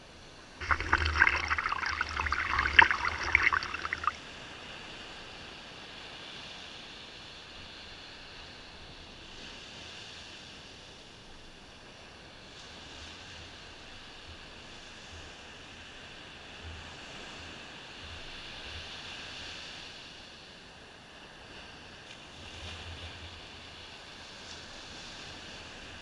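Ocean surf at the waterline of a sandy beach. Shortly after the start, a wave's wash rushes up close to the microphone with loud, crackling foam for about three seconds. After that a steady, softer hiss of waves breaking and washing in runs on, swelling gently now and then.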